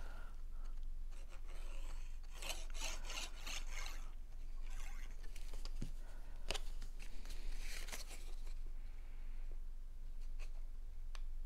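Cardstock pieces being handled, folded and rubbed together, rustling and scraping in several short spells with a few light clicks.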